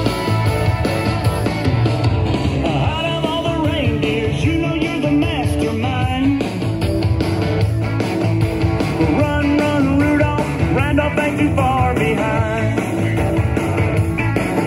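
Music: a rock-style song with a singing voice.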